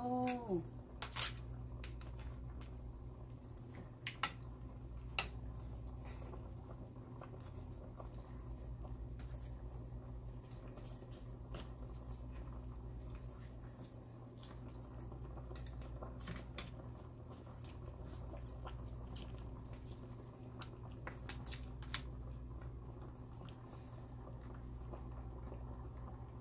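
A spoon stirring and turning a pan of seafood boil (crab legs, crawfish, clams, corn and potatoes in sauce), with scattered clicks and knocks of shells and spoon against the pan over a steady low hum.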